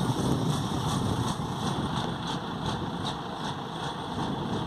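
L&T Komatsu PC200 excavator's diesel engine idling steadily, just after being started.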